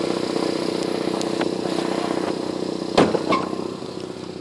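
Bucket truck's engine running steadily, with an even drone. About three seconds in there is a short, sudden loud sound.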